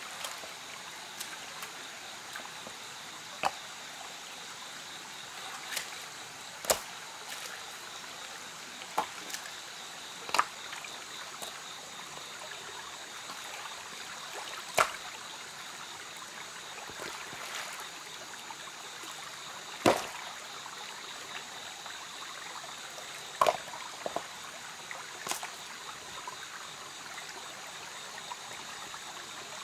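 Shallow stream trickling over rocks, with sharp clacks of stones knocked together as they are set in place in the stream bed, about a dozen at irregular intervals, the loudest about twenty seconds in.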